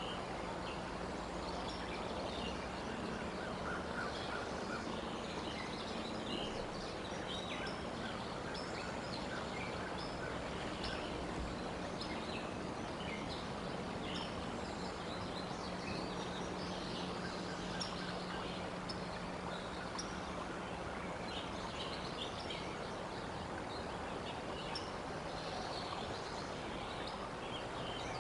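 Outdoor treetop ambience: a steady hiss with many short, high chirps of small birds scattered throughout, over a low steady hum that fades out about three-quarters of the way through.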